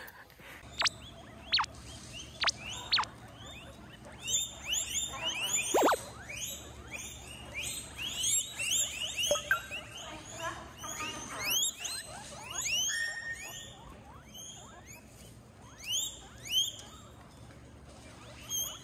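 Guinea pig squeaking: a few sharp single squeaks at first, then from about four seconds in dense runs of short, high chirps in bouts.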